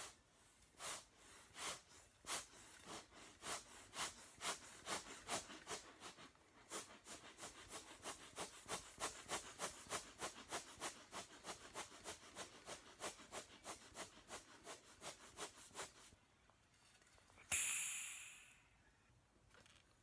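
Trombone played as a noisemaker, with no notes: short breathy puffs of air, about one every two-thirds of a second at first and then about three a second. They stop, and near the end a single rushing hiss of air lasts about a second and fades.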